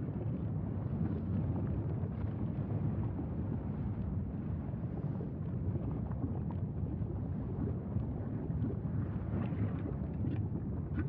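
Steady low roar of a lava fountain at an erupting fissure, with faint scattered crackles and pops, more of them a little before the end, mixed with wind noise on the microphone.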